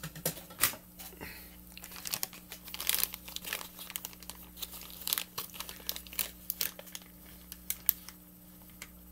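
Clear plastic package of fishing bobbers crinkling as it is handled, with irregular sharp crackles that die down about eight seconds in.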